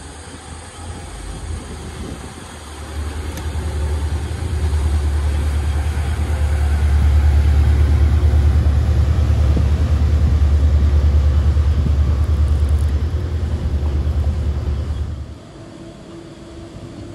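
RiverCat catamaran ferry's engines rumbling as it accelerates away from the wharf and passes close by. The low rumble builds over the first few seconds and cuts off suddenly near the end, leaving a quieter steady hum.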